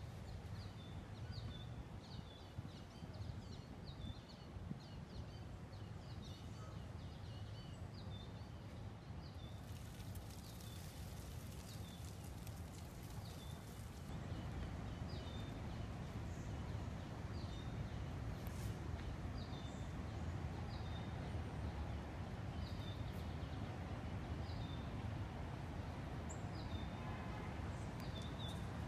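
Outdoor ambience: a bird's short, high chirp repeated every second or so over a steady low rumble. A soft hiss swells for a few seconds about a third of the way in.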